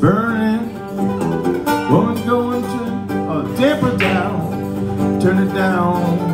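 Acoustic guitar and mandolin playing a lively bluegrass accompaniment together, with a voice swooping up and down about every two seconds over the strings.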